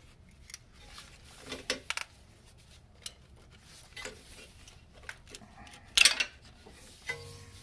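Plastic motor cable cover being wiggled and pried loose by hand: a scatter of light plastic clicks and scrapes, with a louder clatter about six seconds in.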